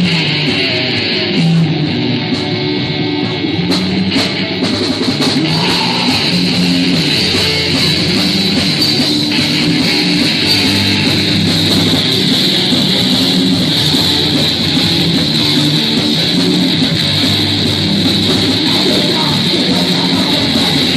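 Loud rock music led by guitar, playing continuously.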